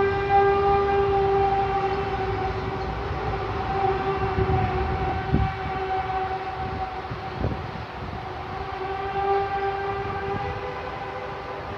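A steady, loud, trumpet-like droning tone with many overtones, the kind of 'strange sound in the sky' reported as The Hum, with no identified source. Its pitch wavers slightly and rises a little near the end, over a low rumble, with two dull thumps near the middle.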